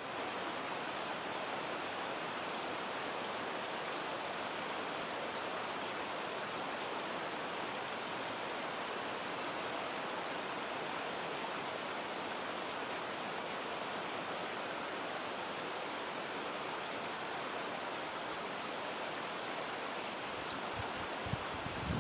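Shallow, rocky stream rushing steadily over stones, an even hiss of running water. A few low bumps come in near the end.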